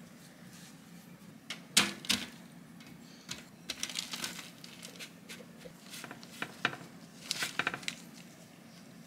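A spatula scrapes and taps against a glass mixing bowl while crumbly cookie dough is stirred and scraped out onto a baking tray. Irregular clicks and knocks run throughout, with one sharp knock a little under two seconds in.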